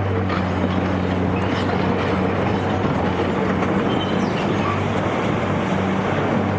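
Caterpillar 385C excavator's diesel engine running steadily under load, with dense rough mechanical noise and scattered faint knocks over the engine tone.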